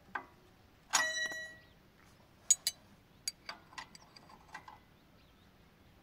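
A metal part struck once with a short ringing clink about a second in, then a string of sharp metallic clicks and taps over the next two seconds, as metal parts and tools are handled.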